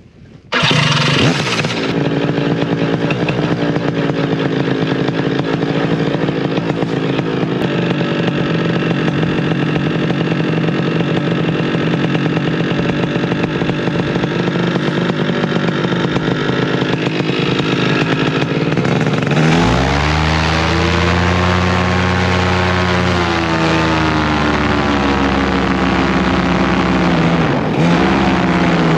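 Paramotor engine running at a steady speed, starting abruptly; about two-thirds of the way in its pitch drops and rises again as the throttle is worked.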